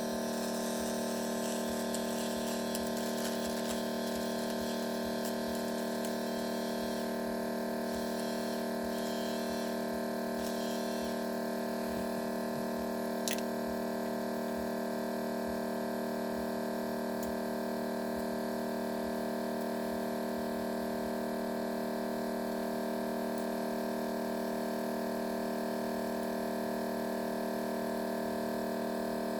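Steady multi-tone hum from the powered repair-bench equipment, with faint scraping from cleaning adhesive off the phone frame during the first ten seconds or so and a single click about 13 seconds in.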